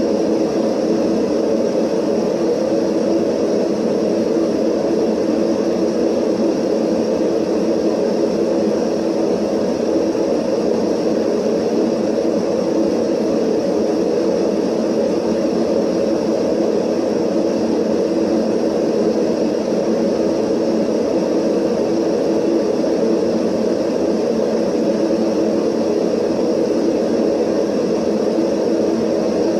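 Steady static noise: a dense, unchanging hiss weighted toward the low middle range, with a few faint steady tones running through it.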